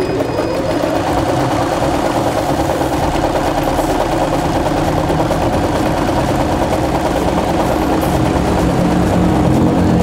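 Riccar 2200 computerised sewing machine running steadily at speed, stitching through two layers of canvas.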